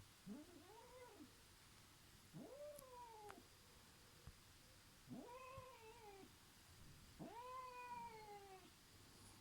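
A sleeping pet makes soft, drawn-out moaning calls in its sleep. There are four calls a couple of seconds apart, each rising quickly in pitch and then sliding slowly down.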